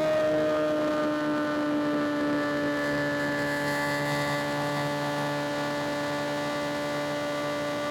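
Suzuki GSX-R 750 inline-four engine running at steady revs while riding, its note sinking very slightly in pitch.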